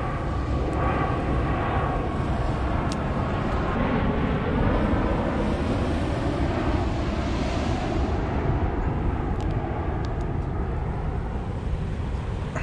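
Steady wind on the microphone and surf at the beach, with a distant engine drone whose pitch rises over several seconds.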